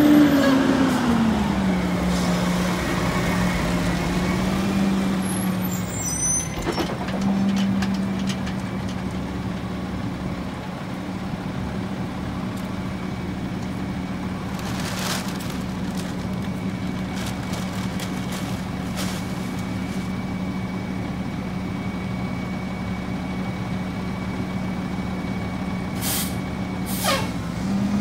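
Mack LE rear-loader garbage truck's diesel engine slowing as the truck comes to a stop, then idling steadily. Air brakes hiss now and then, with two sharp hisses near the end.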